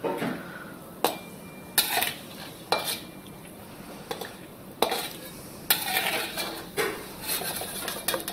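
Metal slotted skimmer scraping and knocking against a metal kadhai as almonds are stirred and lifted out of hot ghee, about a dozen irregular clanks and scrapes over a faint sizzle.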